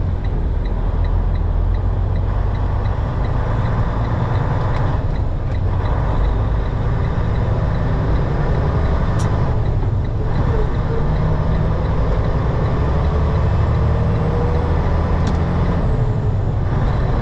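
Semi-truck diesel engine running, heard from inside the cab as the truck pulls away and goes up through the gears. It is a steady, loud low drone that dips briefly at each shift, about 5 and 10 seconds in.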